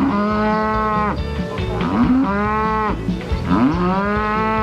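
Cow mooing three times in a row, each a long call that rises in pitch at the start and then holds.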